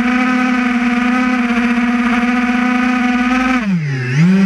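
Camera drone's motors and propellers humming at a steady pitch, heard from the drone itself. About three and a half seconds in the pitch drops sharply and then rises again as the motors slow and spin back up.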